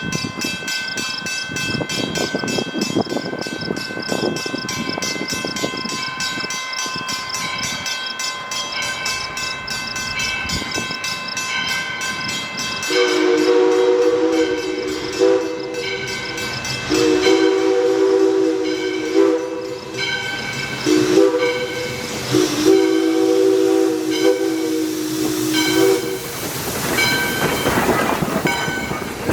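Steam whistle of ALCO 2-8-2 Mikado #40 sounding a chord in a long, long, short, long pattern, the grade-crossing signal. It follows a stretch of steady high ringing tones with a fast pulse, and a loud hiss of steam and passing train comes near the end.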